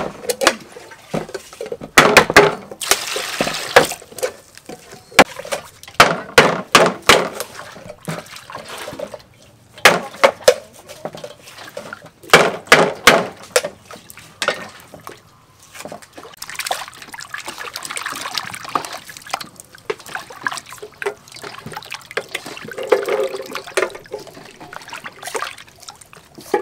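Button mushrooms being washed by hand in water in a stainless steel bowl and plastic colander: water sloshing and splashing, broken by many sharp clatters and knocks.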